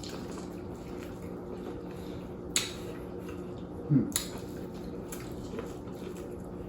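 Mukbang eating sounds from a saucy seafood boil: wet, squelchy handling of the food, with two sharp clicks like a utensil or dish, about two and a half and four seconds in, over a low steady hum.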